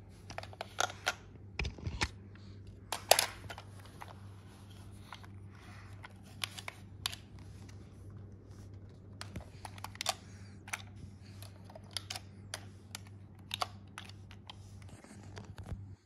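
Irregular light clicks and knocks of plastic toy remote-control cars being handled and set down on a tiled floor, the loudest about three seconds in, over a steady low hum.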